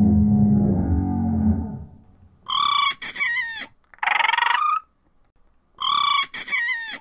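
Animal-call sound effect for a walking Triceratops. A low, drawn-out growl fades away over the first two seconds, then a pair of higher calls with bending pitch follows. The same pair comes again about three seconds later, as a repeated loop.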